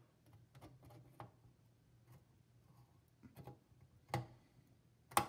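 Small side cutters working at the leads of a capacitor on a computer circuit board: a few light clicks and taps, then two sharper clicks about a second apart near the end, the second the loudest, as the leads are snipped.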